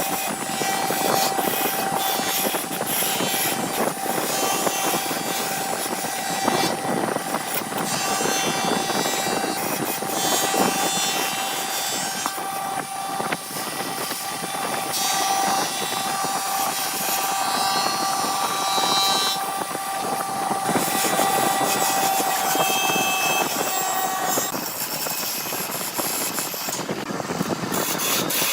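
Wood lathe running with a steady motor whine and the scraping noise of a tool cutting wood; the whine stops about 24 seconds in.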